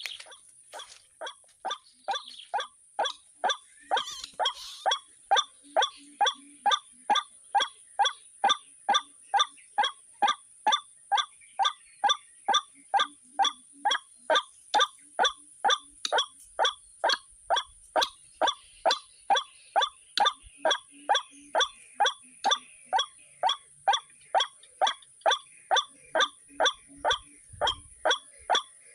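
White-breasted waterhen calling, a harsh repeated note about twice a second that builds in loudness over the first few seconds and then keeps an even, steady rhythm.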